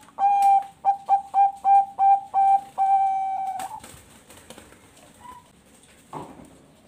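Zebra dove (perkutut bangkok) cooing one full song phrase: a long opening note, a quick run of about seven short notes, then a long held final note, ending just under four seconds in.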